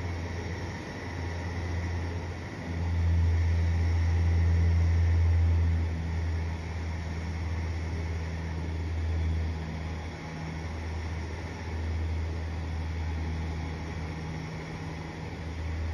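The lift mechanism of a small art-installation roller coaster hauling a single car slowly up a steep track, a low mechanical hum that swells and eases as it climbs.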